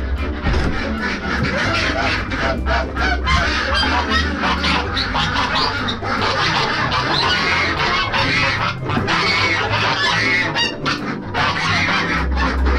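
Domestic geese honking repeatedly, with ducks among them, as the flock crowds out of its house, over background music with a steady bass.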